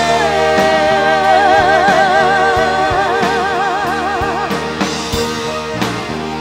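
Rock band playing, the lead singer holding one long note with a steady vibrato over the band. The note ends about four and a half seconds in, leaving drum hits and the instruments.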